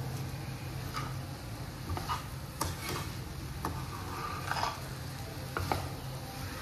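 A spoon stirring grated carrot and sugar in a pan, with scattered scrapes and clinks against the pan over a steady low hum.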